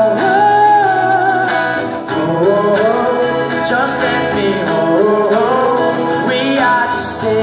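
Two acoustic guitars strummed in a steady rhythm, with male voices singing held, sliding notes of a pop-folk song played live.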